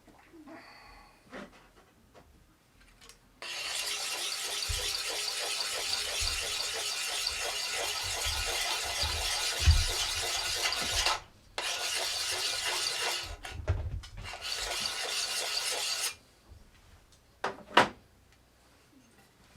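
Steel bit of a double-bit axe being sharpened by hand, an abrasive rubbed steadily along the edge. It makes a continuous rasping from about three seconds in, with a brief break in the middle, and stops a few seconds before the end. A few light knocks come before and after.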